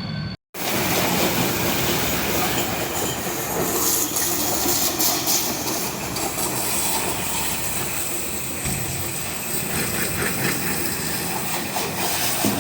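Water jet spraying and washing down a backhoe loader: a loud, steady hiss with a low hum underneath, starting after a brief cut to silence about half a second in.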